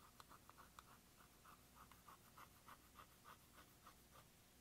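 Faint scratching of a plastic spatula scraping and crumbling pressed powder blush in its compact, in quick short strokes about four a second.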